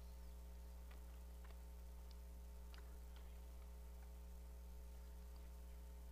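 Near silence: a steady low electrical hum, with a few faint, scattered clicks and ticks.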